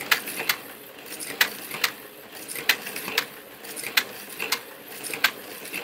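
Slot cars racing round a plastic track: small electric motors whirring, with sharp clicks that come in pairs a little more often than once a second as the cars circle the track.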